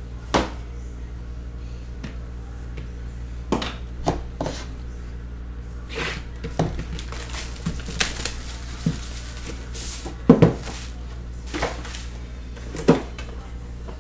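Hands peeling and tearing the plastic shrink wrap off a cardboard trading-card box and handling the box, giving scattered crinkles, crackles and knocks, the loudest about ten seconds in.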